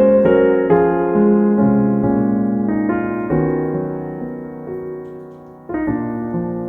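Background piano music, slow and gentle, with single notes and chords that ring and fade. The notes thin out and die away, then a new chord is struck near the end.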